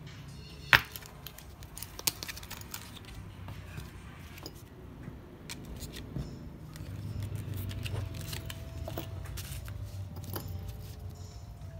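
Small metallic clicks and taps of an enamel pin being fitted onto a paper backing card and its rubber clutches pushed on, with one sharp click about a second in. A steady low hum runs underneath.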